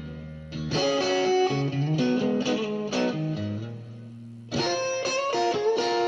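Instrumental background music led by guitar over a bass line; the playing thins out around four seconds in, then a new, fuller phrase begins.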